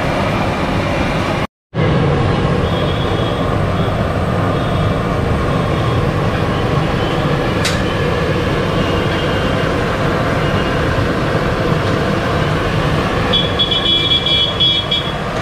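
Samosas deep-frying in a large kadai of hot oil, the oil sizzling and bubbling steadily over the low roar of the gas burner beneath it. The sound breaks off for a moment about a second and a half in.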